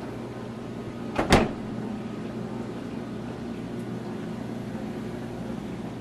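A sharp knock, two quick clicks close together about a second in, as an item is set down on a shelf in an open freezer compartment, over a steady low hum.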